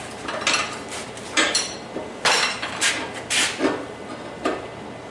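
Irregular clanks and clinks of steel, about eight sharp knocks with some ringing briefly, as hot steel chain and blacksmith tools are worked at the anvil.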